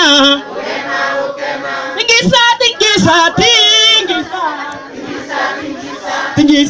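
Call-and-response singing: a group of voices sings together, and a lead singer's louder voice over a microphone comes in about two seconds in and again near the end.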